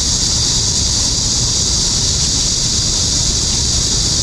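Wind rumbling on the microphone under a steady, high-pitched insect drone, likely cicadas or crickets in the trees.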